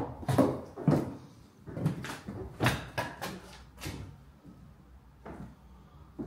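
Footsteps on a staircase: a string of irregular knocks, roughly one every half second to a second. The loudest comes at the start, and the steps thin out and stop about five seconds in.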